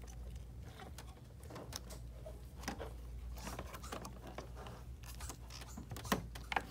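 Faint handling noises: light clicks, taps and rustling as a plastic external ink tank and its ink tubing are lifted and worked free of a printer by gloved hands, with two sharper clicks near the end, over a low steady hum.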